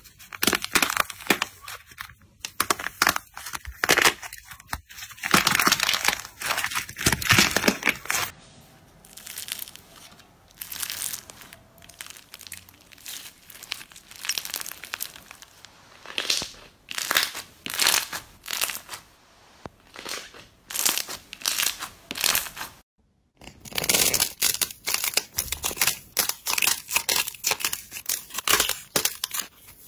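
Slime and clay ASMR handling sounds in three parts. First, the dried crust of a clay heart cracking and crinkling under the fingers. Then, after about eight seconds, glossy clear slime with foam beads squished and stretched in quieter, spaced squelches. After a short silence a little past twenty seconds in, a thick textured slime is torn and pressed with dense crackly tearing sounds.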